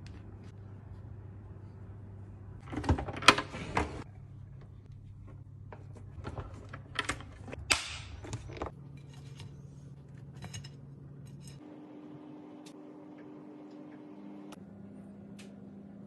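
Kitchen handling sounds: a few sharp clatters and rustles about three seconds in and again around seven to eight seconds, over a steady low hum.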